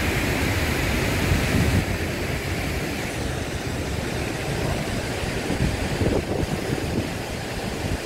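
Wind buffeting the microphone in uneven gusts over a steady rushing hiss of falling water.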